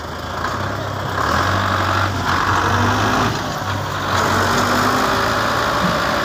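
Belarus tractor's diesel engine working hard under load, pushing a stuck, brick-laden trolley. The engine gets louder about a second in and stays loud, with a brief dip midway.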